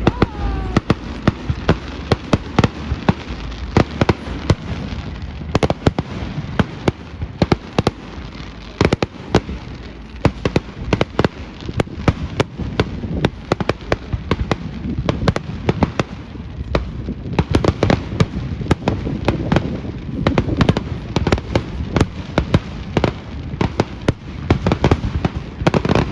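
Fireworks display: a dense, continuous barrage of sharp bangs and crackles, several a second, over a low rumble.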